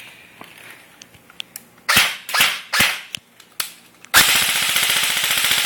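Airsoft gun shooting BBs at a phone: a few single shots about two to three and a half seconds in, then a rapid, continuous string of shots from about four seconds in.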